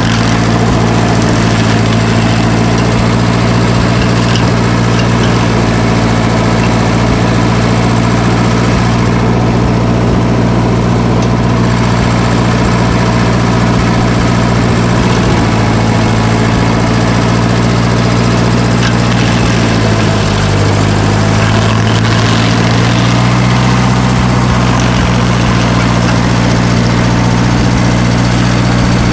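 Engine of heavy equipment running steadily at working speed. About twenty seconds in its pitch drops briefly under load and then climbs back.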